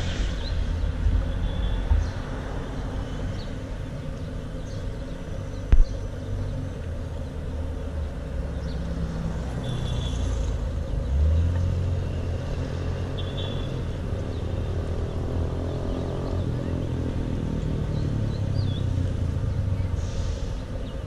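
City street ambience: a steady low rumble of traffic, with a single sharp knock about six seconds in and scattered faint high chirps.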